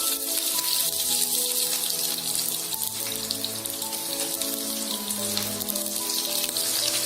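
Mustard seeds, fennel and freshly added curry leaves sizzling and crackling in hot groundnut oil in a kadai, a steady dense hiss full of small pops. Background music with held notes plays underneath.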